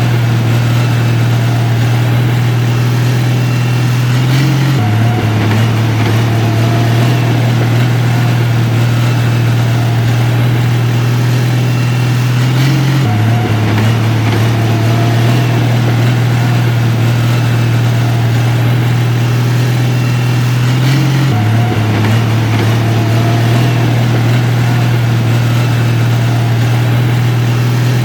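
Heavy diesel engine of earthmoving machinery running steadily, with a strong low note. The note drops abruptly about every eight seconds, and the same pattern repeats each time.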